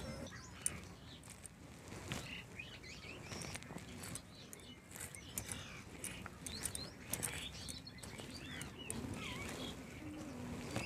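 Birds chirping and calling in short, quick phrases, faint against the yard's background. Light clicks and scrapes come from small fish being cut on a boti's fixed curved blade.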